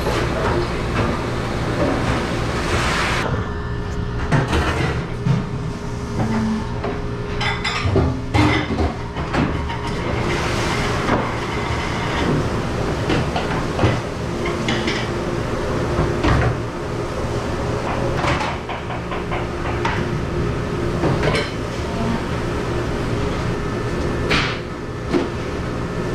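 Dish pit clatter: stainless steel hotel pans and dish racks knocking and scraping at a steel sink, in many short irregular knocks. Under them runs a steady machine hum from the kitchen equipment.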